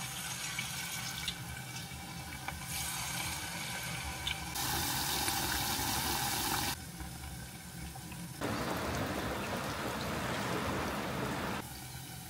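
Vegetable fritter batter deep-frying in hot oil in a pot, sizzling steadily. The level jumps up and down abruptly a few times and is loudest for a couple of seconds in the middle.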